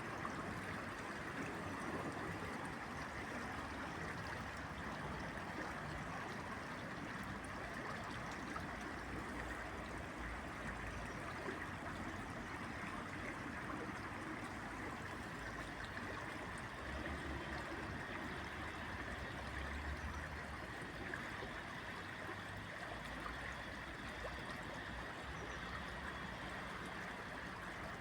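Steady rushing of running water, with a low rumble that comes and goes underneath.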